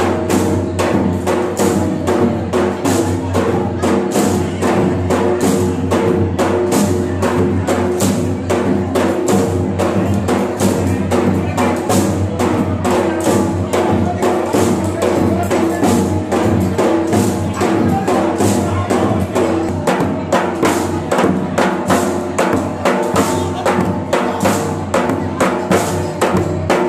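Live Gujarati folk dance music: dhol drums and dandiya sticks clicking together keep a steady beat of about two to three strokes a second, under a steady held melody.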